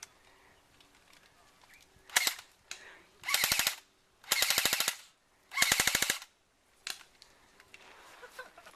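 Airsoft gun firing on full auto: a short burst about two seconds in, then three rapid bursts of shots in quick succession.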